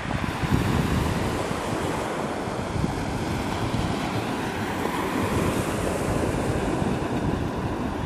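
Small sea waves breaking and washing continuously up a pebble beach, with wind buffeting the microphone.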